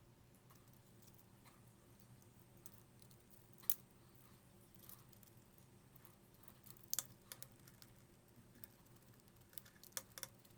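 Small sharp plastic clicks and taps from handling the opened gamepad's parts, scattered over near silence: one louder click about a third of the way in, a quick pair at about two-thirds, and two more near the end.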